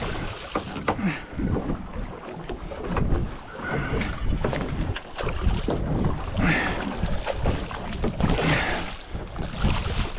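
Wind buffeting the microphone and water slopping against a small boat's hull, with scattered knocks and rattles as the landing net and gear are handled during the fight with a hooked kingfish.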